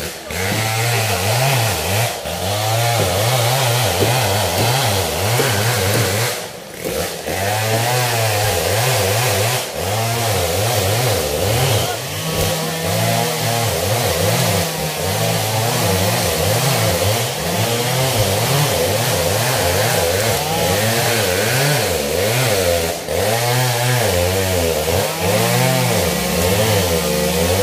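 Two-stroke chainsaw running, its engine revving up and falling back over and over, with a few short drops near the start.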